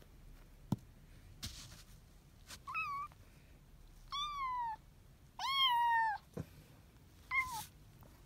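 Kitten meowing four times in short mews, the third the longest and loudest. A single sharp tap comes shortly before the first meow.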